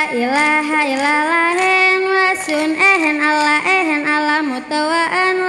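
A young woman's solo voice singing a chant into a microphone, holding long notes that bend and slide in pitch: the sung lead of a Saman dance.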